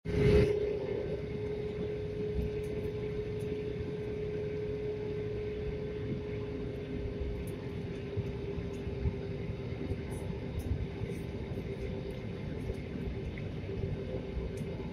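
Cabin noise of an Airbus A320neo on the ground after landing: the jet engines and airframe give a steady drone with a held hum over a low rumble.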